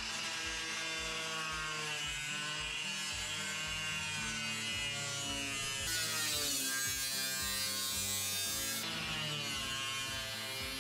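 Angle grinder cutting through galvanized sheet steel with a cut-off wheel. The motor whine sags in pitch and a gritty hiss of cutting rises as the wheel bites into the metal about six seconds in, then the whine climbs back up near the end.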